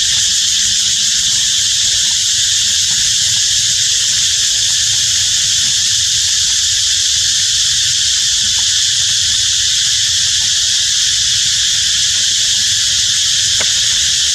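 Loud, steady chorus of insects droning without a break, high-pitched and even.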